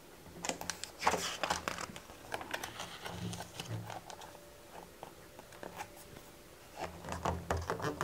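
Picture-book page being turned and pressed flat by hand: soft paper rustling with many light ticks and scratches.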